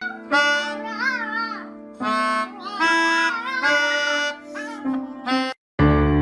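Melodica played in held notes while a small poodle howls along in wavering tones that rise and fall above the reed. Near the end this stops and background music begins.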